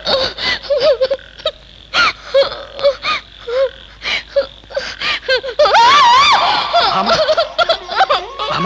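A high-pitched voice in short, broken bursts, rising to a loud, long wavering cry about six seconds in.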